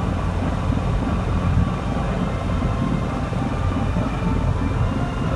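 Harbour sightseeing boat's engine running with a steady low rumble, heard from on board.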